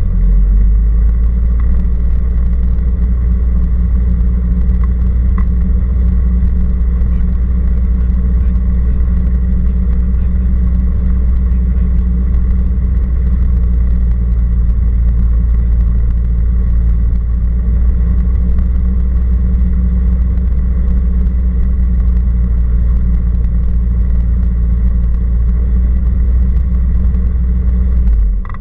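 Cessna 172R Skyhawk's four-cylinder Lycoming engine and propeller running, heard inside the cockpit as a loud, steady low drone. It steps up just after the start and drops off sharply right at the end.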